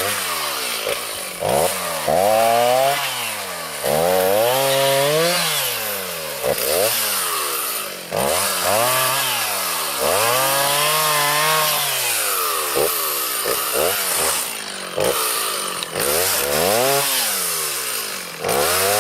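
Chainsaw repeatedly throttled up and down, about a dozen short bursts, each rising in pitch, holding briefly and dropping back toward idle.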